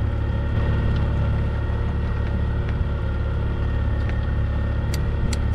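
Boat engine running steadily at trolling speed, a low, even drone, with a couple of faint clicks near the end.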